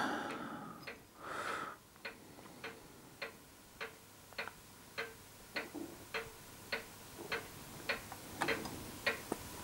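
Faint, even ticking, about five ticks every three seconds, with a soft brief rustle about a second and a half in.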